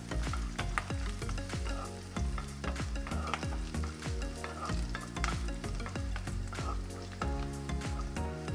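A wooden spatula stirs and scrapes ginger, garlic, curry leaves, green chillies and coconut slices that sizzle in hot coconut oil in a heavy-bottomed pan. The spatula scrapes and knocks against the pan over and over.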